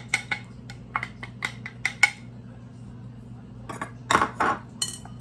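A utensil clinking and tapping against a bowl, a quick run of light taps in the first two seconds, as chopped carrots are knocked into the bowl. About four seconds in comes a short, louder scrape, then a couple more clinks.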